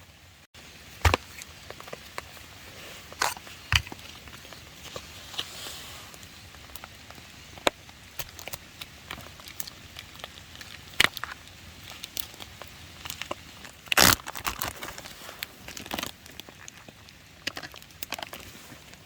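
Plastic bag and food packaging crinkling and rustling as it is handled, with irregular sharp clicks and knocks; the loudest rustle comes about fourteen seconds in.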